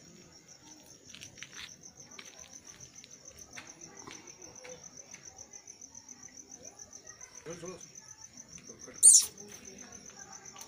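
A cricket trilling steadily, a rapid pulsing chirp. About nine seconds in comes one short, loud, high-pitched burst.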